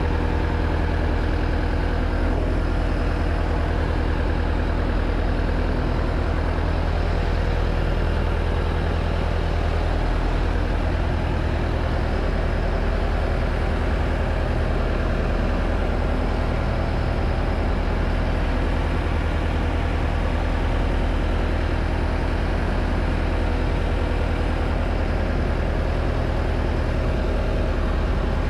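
Fishing boat's engine running steadily, a low, even drone with no change in speed.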